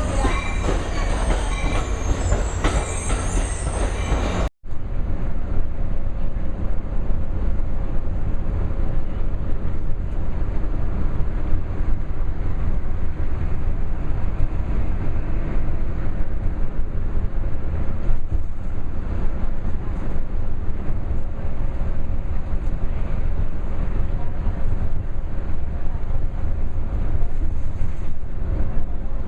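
Train running on the rails with a steady, heavy rumble, briefly cut off about four and a half seconds in and then continuing more evenly.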